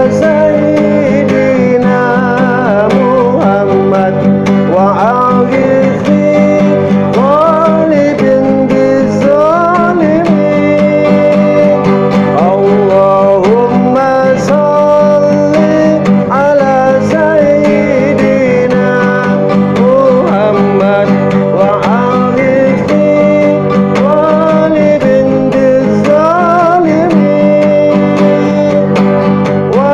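A man singing sholawat, an Islamic devotional song, to his own acoustic guitar accompaniment, the voice over steadily played chords.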